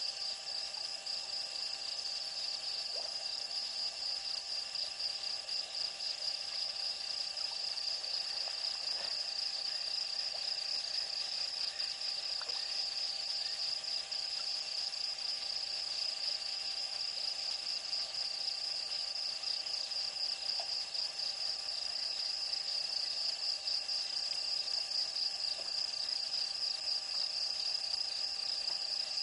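Steady night chorus of insects, a continuous high, finely pulsing trill like crickets.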